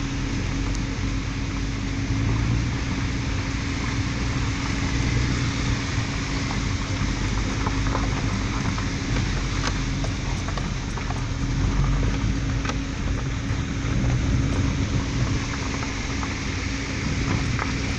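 A car driving along a mountain road: steady engine and tyre rumble with a constant low hum, and scattered small clicks and knocks from the road surface.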